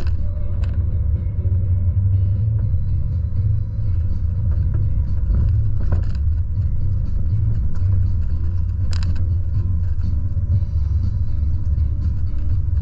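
Volvo truck's diesel engine and road noise heard from inside the cab as a steady low rumble while driving slowly. A few brief knocks or rattles sound over it, the sharpest about nine seconds in.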